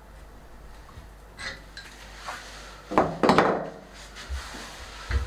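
Metal clinks and clanks of tools and lathe fittings being handled at a stopped wood lathe: a few light knocks, then a loud cluster of sharp clanks about three seconds in, and a couple more softer ones near the end.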